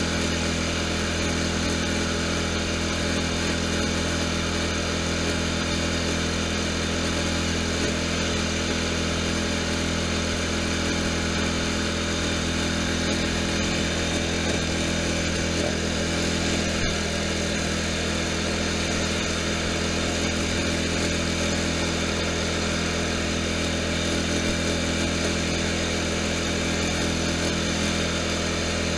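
Riding lawn tractor's engine running steadily while the tractor drives along at an even pace, a constant drone with no change in speed.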